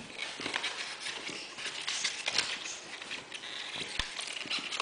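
Handling noises as ribbon ties are worked loose from a toy airplane in a styrofoam packaging tray: irregular scratching, rustling and light tapping, with a sharper knock about four seconds in.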